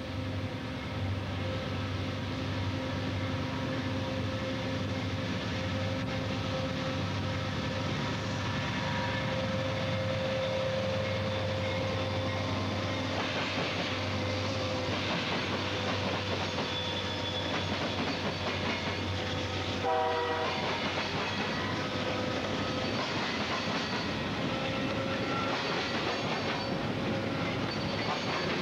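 CN C40-8M diesel locomotive hauling a heavy freight train under power, giving off a steady droning whine with several held tones. The noise sounds like dynamic brakes even though the units are in power, and its cause is unknown to the uploader. A brief higher-pitched sound cuts in about twenty seconds in.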